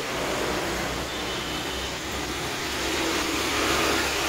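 Steady street traffic noise: a continuous, even rumble of passing vehicles.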